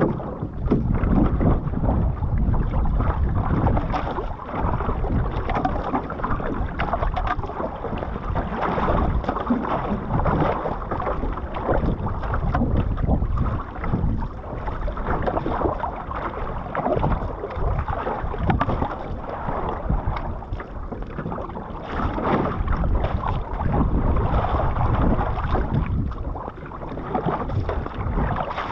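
Water sloshing and splashing against the hull of a Kamanu Composites one-person outrigger canoe as it is paddled through chop, the paddle blade dipping into the water with each stroke, with wind buffeting the microphone.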